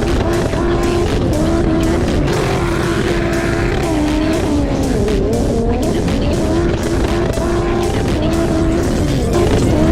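Background music with a steady beat, mixed with the sound of racing jet ski engines.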